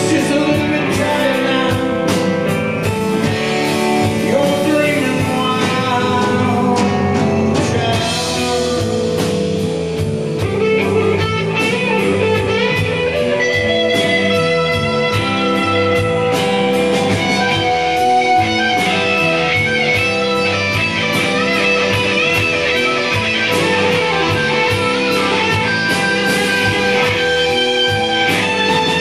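Live rock band playing: a strummed acoustic guitar with bass guitar and drum kit.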